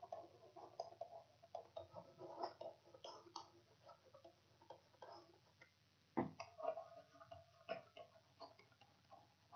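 Faint, irregular clicking and scratching of a stylus writing on a pen tablet, with a sharper tap about six seconds in and another near eight seconds.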